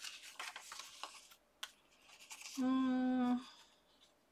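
Light rustling and tapping of cardstock and paper pieces being handled, then a person's single held 'hmm' about two and a half seconds in, the loudest sound, while weighing up how a tag looks.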